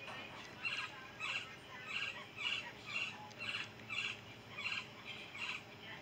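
Red-bellied woodpecker calling: a series of short trilled calls, about two a second.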